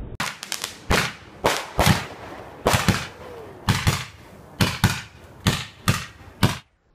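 Fireworks going off: a rapid, irregular string of about a dozen sharp bangs, each trailing a short echo.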